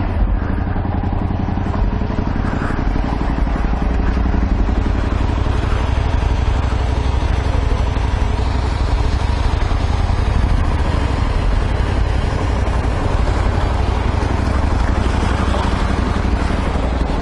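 Honda Varadero 125's small V-twin engine idling steadily, heard from the rider's seat.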